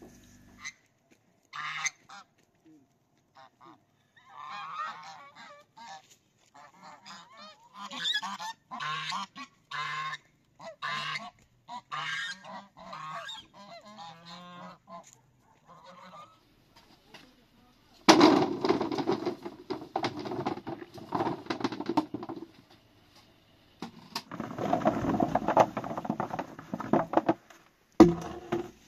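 Domestic geese honking in repeated short calls through the first half. After that comes louder rustling and knocking noise in two stretches, with a sharp knock near the end.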